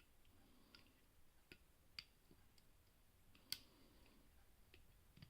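Faint, scattered metallic clicks from a wire pick and tensioner working the brass levers inside a Squire 770 lever padlock, about six in all, the loudest about three and a half seconds in.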